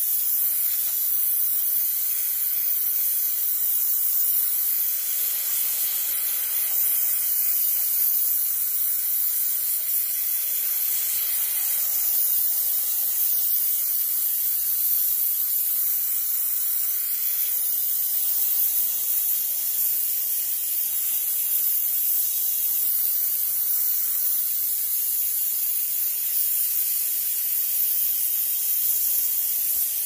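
Steam cleaner jet hissing steadily without a break, a high hiss of even loudness.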